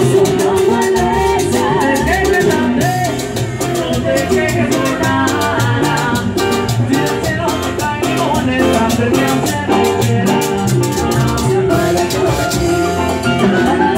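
Live cumbia band playing through a PA system: singing over drums, bass and a metal güiro scraped in a steady dance rhythm.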